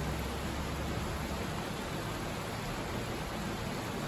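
Steady hiss of heavy rain falling, with a low rumble in the first second and a half.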